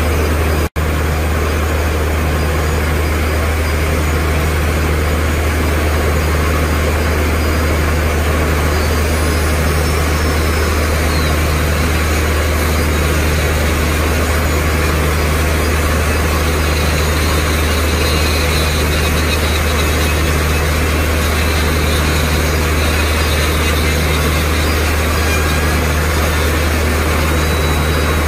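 Handheld electric die grinder with a small grinding wheel, grinding the carbide buttons of a borewell drill bit to sharpen them: a steady, harsh grinding hiss with a faint high whine, over a loud, constant low engine drone. The sound drops out for an instant under a second in.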